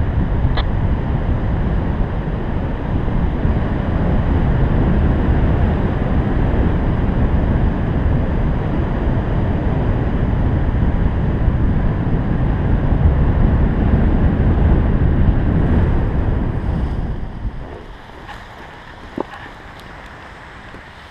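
Rushing wind on the microphone of a paraglider pilot's camera during the final glide, dropping away sharply about three-quarters of the way through as the pilot touches down. A single short knock comes near the end.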